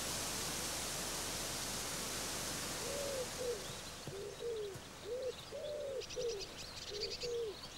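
Wind rustling through tree leaves, a steady hiss that fades about three to four seconds in. A pigeon then coos in a run of short repeated notes, and a small bird chirps from about six seconds in.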